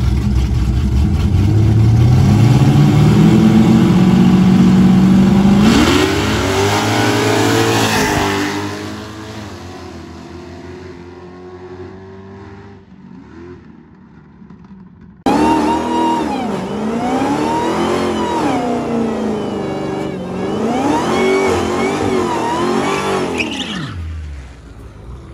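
Two Chevrolet Camaros launching side by side on a drag strip, engines climbing in pitch through a gear change and fading away down the track. Then a Dodge Challenger doing a burnout, its engine revving up and down repeatedly as the rear tyres spin.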